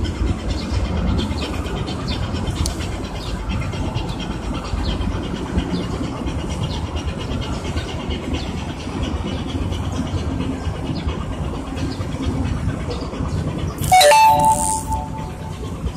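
Steady low rumble of the marine diesel engines of a departing cargo ship and its tugboat. About 14 s in, a sudden loud burst of about a second with a short steady tone cuts across it.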